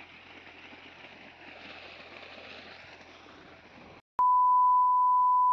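Faint steady background noise. About four seconds in, the sound drops out briefly, then a loud, steady 1 kHz test-tone beep plays: the tone that goes with television colour bars.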